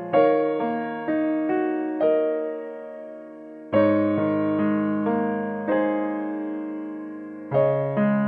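Background piano music: slow, gentle chords, each struck and left to fade, with a fresh chord about every four seconds and single melody notes in between.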